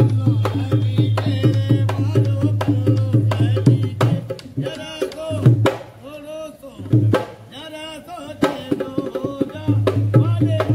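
Dholak hand drum played in a quick, steady rhythm, then in shorter runs from about four seconds in, with a voice singing over it.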